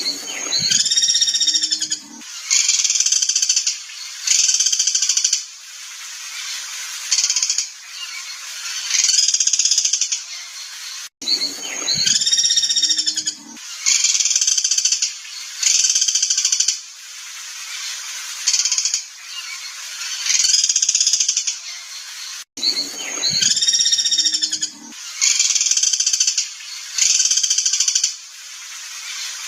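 Looped songbird song of the kind used as a tutor recording for training caged songbirds: loud, rapid whistled phrases about a second long, with a short low note near the start of each cycle. The same loop plays three times, restarting with a hard cut about every 11 seconds.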